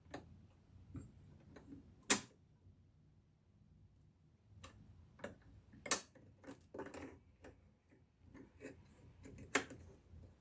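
Irregular small clicks and light knocks from a Singer 328K sewing machine's metal mechanism being handled and worked by hand, with three sharper clicks spaced a few seconds apart.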